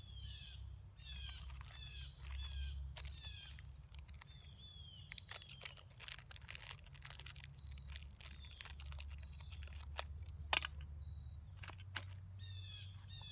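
A wild songbird singing a quick series of short falling notes, over the first few seconds and again near the end. In between come scattered light clicks and rustles of hands working over the tinder, with one sharper click about ten and a half seconds in.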